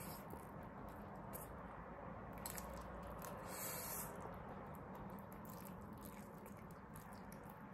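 Noodles being slurped and chewed: faint, wet mouth sounds with small crackles, and a longer hissing slurp about three and a half seconds in.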